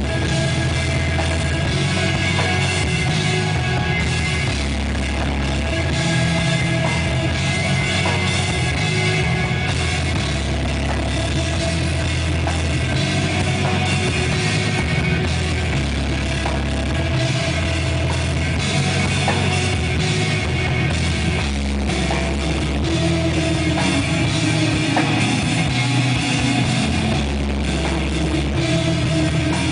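A post-rock band playing live in rehearsal: electric guitar and a full drum kit with cymbals, loud and continuous, with no singing.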